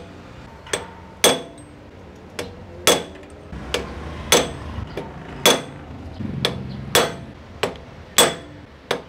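Hammer taps on a metal guide tube, about a dozen sharp strikes at an uneven one to two a second, each with a short metallic ring. They are driving the upper steering-head ball race of a Honda ADV 160 evenly into its seat.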